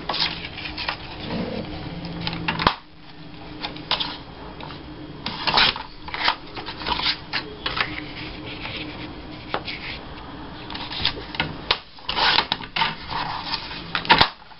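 Scrapbook paper being handled and trimmed on a sliding paper trimmer: rustling and sliding sheets mixed with an irregular run of sharp clicks and short scrapes.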